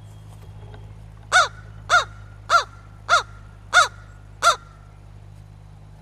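American crow cawing six times in an even series, the harsh caws a little more than half a second apart.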